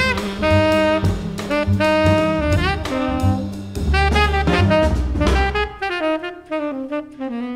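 Jazz quartet playing: a saxophone carries the melody over double bass and drum kit with cymbals. Near the end the bass and drums drop out and the saxophone plays a descending run alone.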